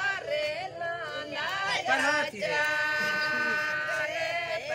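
A group of voices singing a wedding song together, unaccompanied, with one long held note in the middle.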